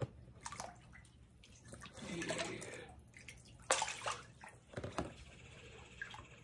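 Catfish feeding at the water surface: sloshing and a few sudden splashes, the sharpest ones past the middle, about a second apart.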